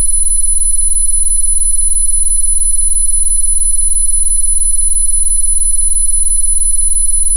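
Synthesized steady electronic tones: one loud, very high-pitched tone with several fainter steady tones below it, over a low, rapidly flickering hum. The tones hold unchanged throughout.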